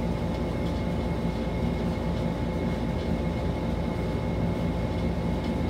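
Steady background hum with a faint high whine running underneath, even and unbroken, with no distinct events.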